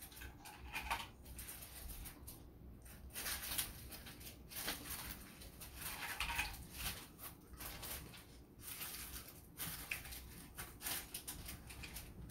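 Crispy fried pig's head (crispy ulo) crackling as it is torn apart by hand and its crisp skin is chewed, in irregular crunchy bursts.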